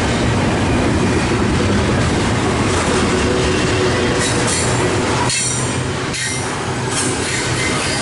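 Union Pacific double-stack intermodal container train rolling past at close range: a steady, loud rumble and rattle of the well cars' wheels on the rails, with some wheel squeal.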